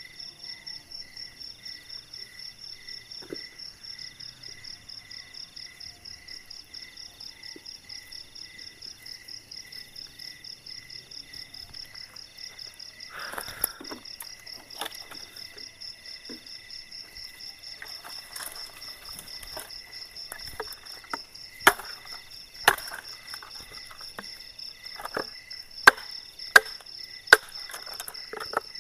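Crickets and other night insects chirping steadily in a fast pulsing rhythm. In the last third, a series of sharp wooden knocks comes about one a second as wood is struck or chopped.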